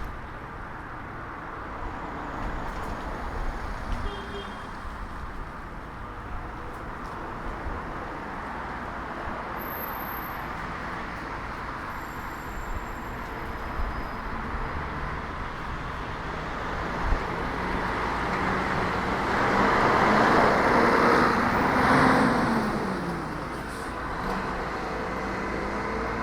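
City street traffic with a steady road noise. A motor vehicle passes close about twenty seconds in: it swells louder, then its engine note drops in pitch as it goes by. Another vehicle's engine rises in pitch near the end.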